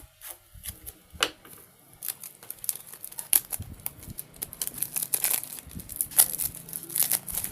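Plastic packaging crinkling and tearing as it is handled, in a run of crackles and small clicks that gets busier about two seconds in.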